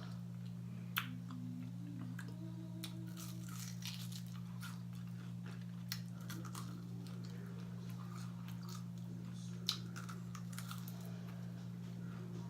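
Close-up chewing and biting of crunchy fried food, with scattered sharp crackles and a few louder crunches, over a steady low electrical hum.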